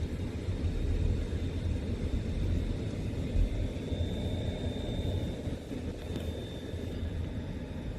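Steady low vehicle rumble, with a faint steady high-pitched tone over it.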